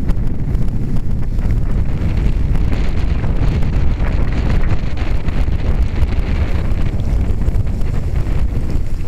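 Wind buffeting a keychain camera's tiny microphone: a loud, steady low rumble, with a brighter hiss swelling for a few seconds in the middle.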